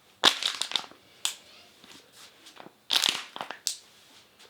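Loud back cracking during a chiropractic-style spine adjustment. A rapid run of crunching pops comes about a quarter second in, then a single crack a second later, then a second run of crunching pops near three seconds.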